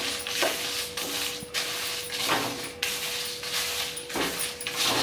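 Wooden spatula stirring and scraping dry niger seeds, sesame seeds, rock salt and dried red chillies around a stainless steel pan as they dry-roast, a gritty rustling scrape with each stroke. A faint steady hum runs underneath.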